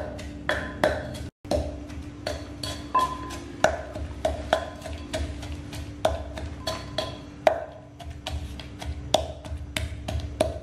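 Wooden pestle pounding in a clay mortar: a steady series of sharp knocks, about two a second at uneven spacing, with a brief break about a second and a half in.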